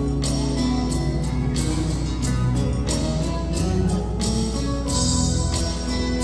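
Music for a stage dance: held pitched notes with bright percussion strokes coming and going.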